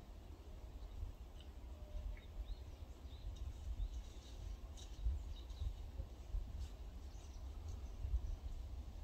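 Quiet mountain-forest ambience: a steady low rumble on the microphone, with scattered faint bird chirps.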